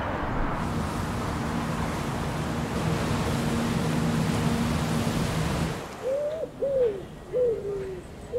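Steady rushing water with a low engine hum from a river passenger boat. The hum cuts off about six seconds in, and a pigeon gives three short coos.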